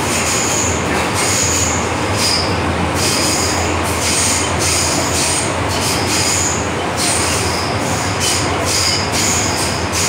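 Cabin noise of an MTR M-train electric multiple unit running at speed through a tunnel: a steady rumble and hum, with high-pitched wheel squeal coming and going in short stretches.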